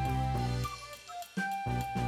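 Background music: an upbeat instrumental track with sustained bass notes and a steady beat.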